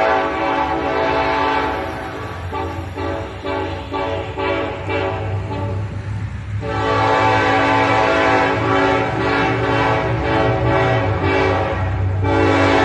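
Air horn of a Ferromex EMD SD70ACe diesel locomotive playing a horn show: a held chord, then a few seconds of short choppy blasts, then a long blast about seven seconds in that breaks off near eleven seconds and sounds again near the end. The low drone of the slow-moving locomotives' diesel engines runs underneath.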